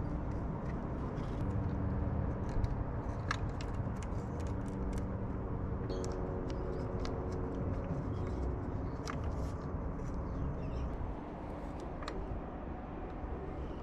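Scattered light clicks and taps of tools and small engine parts being handled, over a low, steady background rumble.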